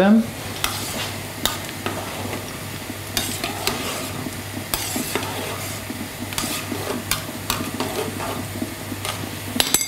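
Spoon stirring varenyky in a pot, with irregular scrapes and knocks against the pot over a steady hiss of cooking and a low steady hum.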